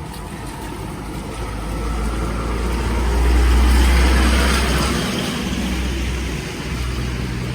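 A road vehicle driving past, growing louder to a peak a few seconds in and then fading away.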